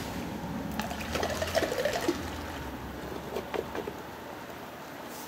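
A carp angler's long-handled baiting spoon being swung and dipped into a bucket to scoop boilies, with rattling clicks and water sounds. A sharp click comes at the start, a cluster of rattles about a second in, and a few more past the middle.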